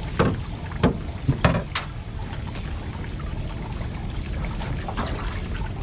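A few sharp knocks and slaps in the first two seconds, one more about five seconds in, over a steady low rumble of wind and water around a small boat.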